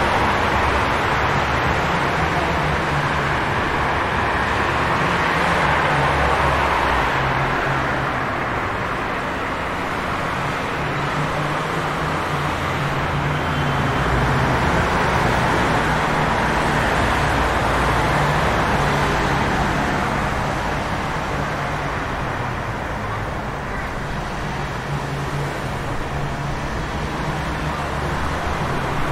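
City traffic on a wet street: a steady hiss of tyres on wet pavement over a low engine hum, swelling and fading slowly as vehicles pass.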